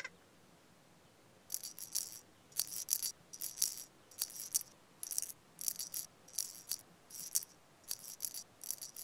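A rattle or shaker shaken in about ten short bursts, roughly one a second, high and thin, as a musical sound effect.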